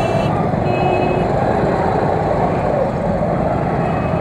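Steady rumble of idling motorcycles and other traffic in a jam, picked up by an action camera's built-in microphone, with short horn tones sounding briefly near the start and again about a second in.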